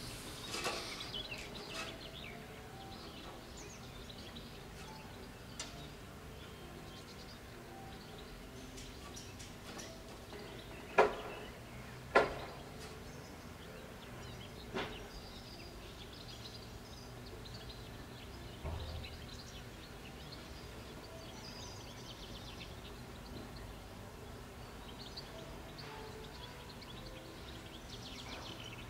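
Steady outdoor background noise with faint bird chirps, broken near the middle by two sharp knocks about a second apart and a lighter one a couple of seconds later.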